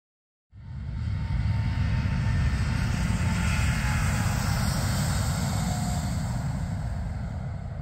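Boeing 787 Dreamliner's jet engines running loud as the airliner rolls on the runway: a deep rumble with a hiss above it. It starts suddenly about half a second in and slowly fades toward the end.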